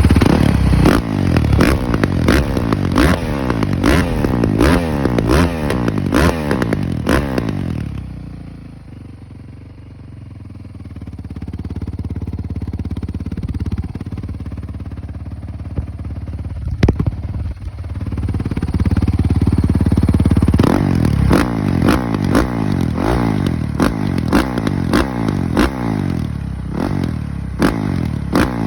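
Honda CRF450R's single-cylinder four-stroke engine run through a modified, opened-up exhaust, revved again and again in quick blips. About eight seconds in it drops back to idle and holds a steady lower note, then from about twenty seconds it is blipped hard again.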